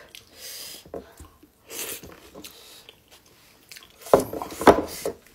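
Eating sounds: chewing and mouth noises of people eating soft millet dhido by hand, with a few short breathy sounds and a cluster of louder mouth noises about four seconds in.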